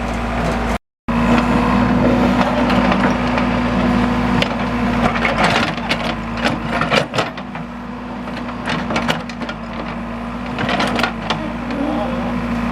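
A backhoe loader's diesel engine runs steadily under a string of sharp cracking and crunching knocks. The sound cuts out for a moment about a second in.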